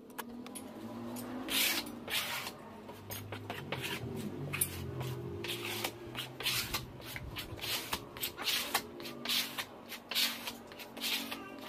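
Glue being spread over a plywood panel with a flat hand spreader: repeated rasping scraping strokes, about two a second, as the adhesive is worked across the wood before laminating.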